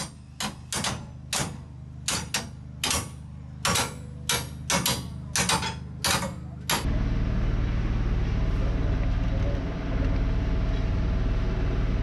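A hammer striking the steel plate nut on a 16 mm tie bar to tighten it against the formwork: a string of sharp blows, roughly two a second. About seven seconds in, the blows stop and a steady low rumble takes over.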